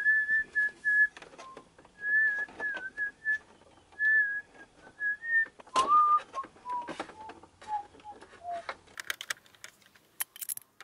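A person whistling a tune in a clear single tone, a run of higher notes followed about halfway through by a lower run stepping downward. Small clicks of wires and plastic parts being handled, with a cluster of sharper clicks near the end.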